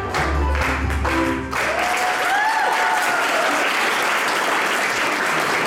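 Dance music stops about a second and a half in, and applause breaks out and carries on steadily, with a voice calling out over the clapping shortly after it starts.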